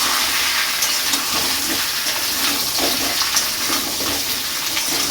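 Boiled potatoes frying in hot oil in a kadai: a steady sizzling hiss with many small crackles and pops.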